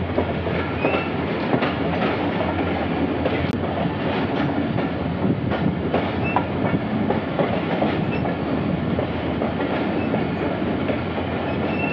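Passenger train running along the track, heard from aboard a coach: a steady rumble of wheels on rail with irregular clicks and rattles. The clicks are the clickety-clack of the wheels over the rail joints.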